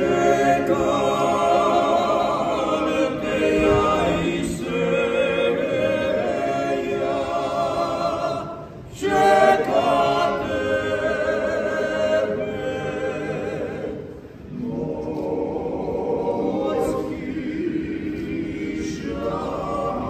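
A klapa, a Dalmatian male vocal group, singing a cappella in close harmony, in phrases with short breaks about 9 and 14 seconds in.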